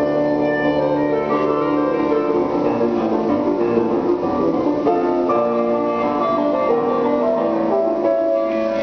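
Instrumental music, with several held notes sounding together and changing every second or so.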